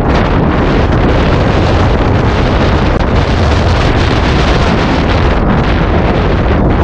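Strong wind blowing hard across the microphone: a loud, steady rush.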